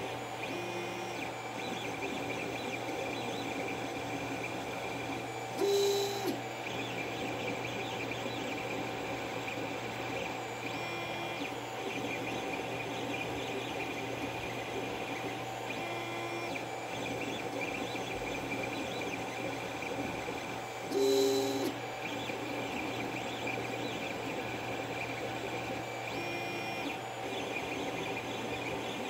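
Creality CR-10 3D printer running a print: a steady hum of fans and stepper motors, with a short pattern of motor moves repeating about every five seconds and two louder, brief bursts about fifteen seconds apart.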